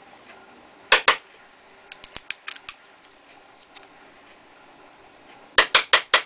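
Primer pocket cleaning tool working in the primer pocket of a brass 30-30 case, making short metallic clicks and scrapes: two sharp clicks about a second in, a run of lighter ticks, then a quick run of louder clicks near the end.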